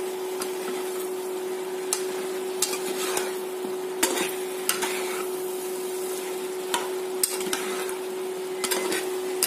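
Mixed vegetables sizzling in a steel pan as a spatula stirs them, knocking against the pan about a dozen times at uneven intervals. A steady hum from the induction cooktop runs underneath.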